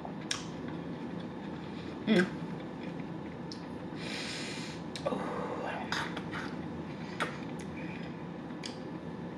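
A person eating with a plastic fork: scattered sharp clicks of the fork, chewing, a short hummed vocal sound about two seconds in and a breath through the nose about four seconds in.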